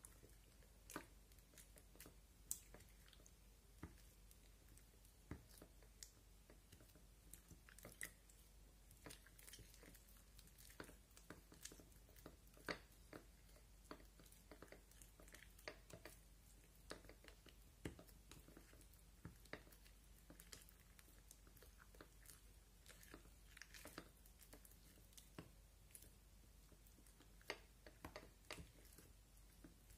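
Slime being squished and kneaded by hand: quiet, irregular, sticky clicks and small pops of trapped air, several a second.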